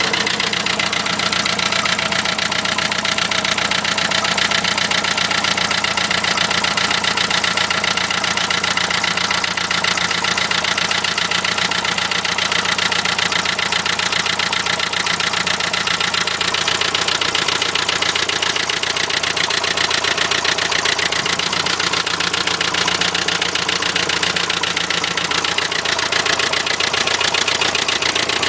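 Renault Trafic van's 2.0 dCi M9R four-cylinder diesel engine idling steadily with a fast, even knocking rattle, which the owner suspects comes from an injector.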